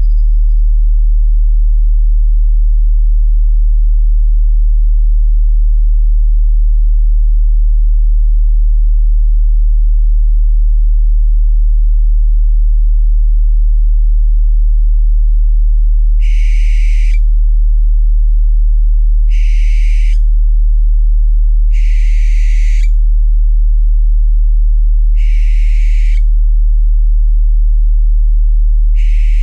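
A steady low drone tone of the kind used in binaural meditation audio runs throughout and is the loudest sound. In the second half, owl calls come five times, each a harsh screech lasting about a second, several seconds apart.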